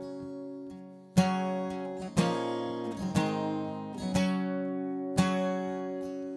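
Acoustic guitar music: strummed chords about once a second, each left to ring out and fade.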